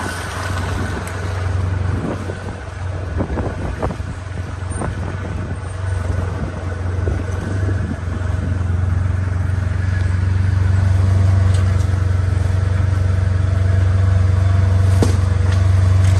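A steady low engine-like drone, growing louder over the second half, with scattered light crunching clicks.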